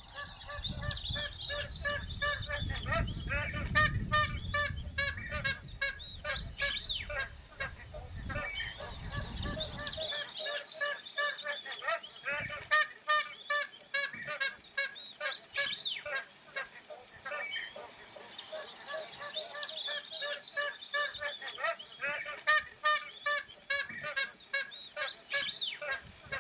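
Magpie geese calling: long runs of rapid, repeated honks. A low rumble sits under the calls for about the first ten seconds, then stops suddenly.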